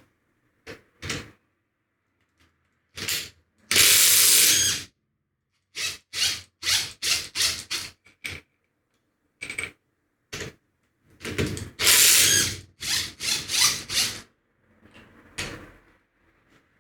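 A workshop tool at work on a Land Rover Series 2 differential, running in repeated short bursts with two longer runs of about a second, with a mechanical ratcheting, rattling sound.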